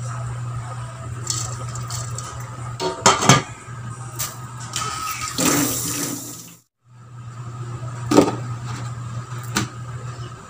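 A glass lid and stainless steel cooking pot clinking and knocking as the lid goes on, over a steady low hum. The sound cuts out completely for a moment a little past halfway, then a couple more sharp clinks come near the end.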